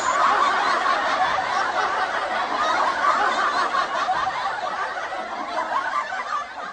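Canned audience laughter: a laugh track of many voices laughing together, slowly fading out near the end.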